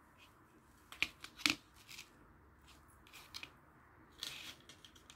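Small handling noises of crochet work: short rustles and clicks as the metal crochet hook and yarn are worked between the fingers, loudest about a second and a half in, over a faint steady hiss.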